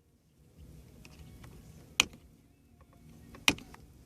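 Hand striking the shift knob of a 2013 Chevy Sonic's automatic shifter, two sharp knocks about a second and a half apart. The knocks are an attempt to free the shift-interlock release button, which is stuck in.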